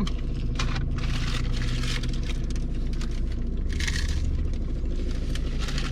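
Food being handled and eaten: irregular rustling and crunching from taco wrappers and chewing, over a steady low hum.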